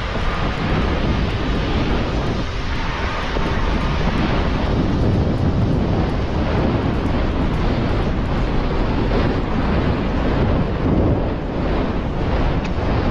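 Wind buffeting the microphone, a loud, continuous rushing noise that keeps shifting in strength.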